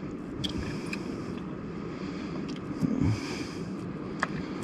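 Faint wet squelching and clicking of a squid tube being pushed inside out by hand, over a steady low outdoor rumble. A short low sound stands out about three seconds in.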